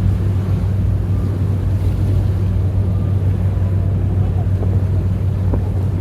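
Steady low drone of a harbour sightseeing cruise boat's engine, with wind buffeting the microphone.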